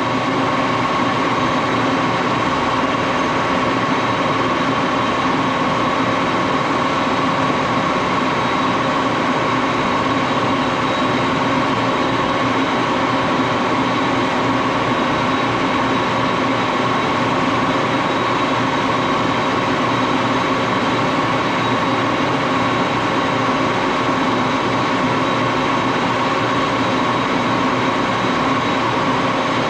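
Axelson engine lathe running steadily under power, a constant mechanical hum with a few held whining tones.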